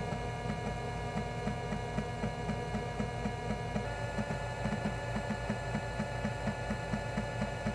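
Sony 2x USB floppy drive formatting a high-density floppy: a steady spindle-motor hum with a regular run of ticks as the head steps track to track. About halfway through it changes to the Japanese PC-98 1.2 MB format, spun at 360 RPM instead of 300, and the hum rises in pitch while the ticks come faster.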